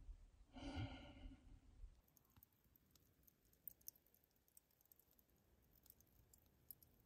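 Near silence, with a brief sigh-like voice sound about a second in, followed by faint scattered clicks.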